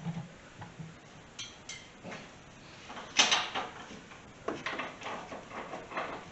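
Knocks and clanks of suspension parts and tools being handled during a rear spring swap, with the loudest knock about three seconds in and a cluster of smaller rattles after it.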